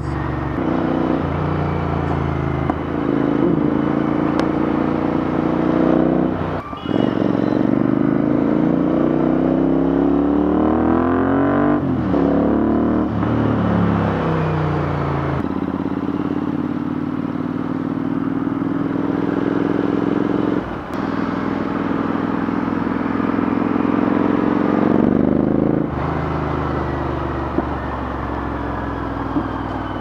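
Royal Enfield Interceptor 650's parallel-twin engine running through an aftermarket Red Rooster slip-on exhaust while riding. The engine note climbs in pitch as the bike accelerates and falls away as it slows, with a couple of short sharp breaks along the way.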